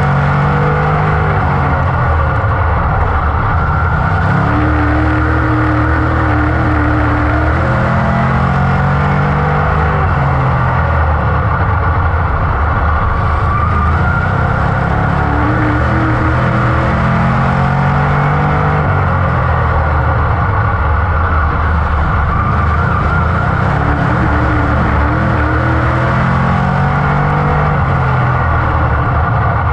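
A dirt-track modified's GM 602 crate small-block V8, heard loud from inside the cockpit at racing speed. Its revs rise and fall in a repeating pattern every several seconds as the car goes around the track, over a steady rush of wind and tyre noise.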